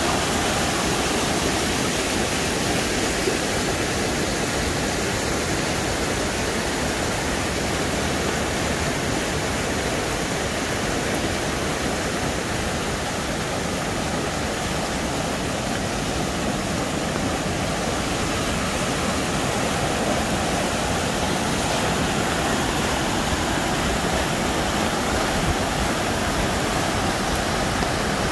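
Fast-flowing creek in high water rushing over rocks and down small cascades: a steady, full rush of white water.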